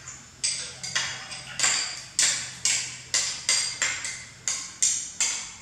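Metal spoon scraping and clinking around the inside of a small ceramic bowl in quick repeated strokes, about two to three a second.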